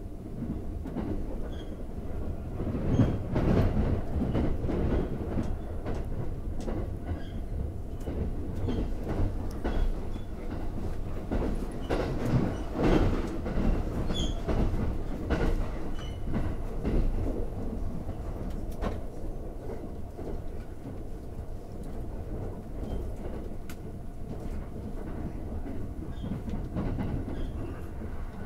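Running noise of the limited express Thunderbird electric train at speed: a steady rumble with the clickety-clack of wheels over rail joints, swelling louder a few seconds in and again around the middle.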